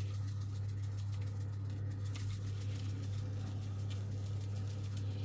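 Steady low electrical hum, with faint light pattering over it from dried oregano being sprinkled onto a pizza.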